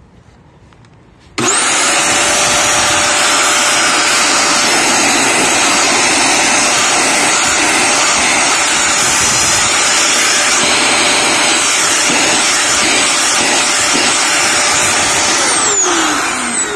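Hitachi blower-vacuum's electric motor switched on about a second and a half in, spinning up at once to a loud, steady, high whine with a rush of air, then switched off near the end and winding down in falling pitch. It is the test run after repairing the motor that had shorted and was sparking.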